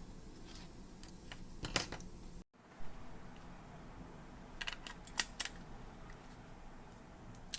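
A few faint, sharp clicks and taps over a low steady hum.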